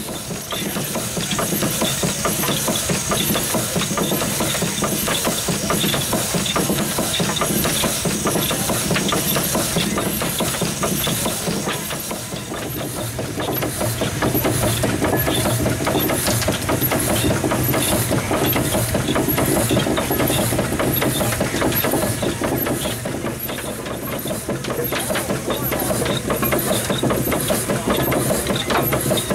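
The twin-cylinder, single-expansion steam engine of a 1912 Waterous 12-ton road roller running steadily, with a constant steam hiss and the regular beat of the crankshaft, crossheads and valve gear.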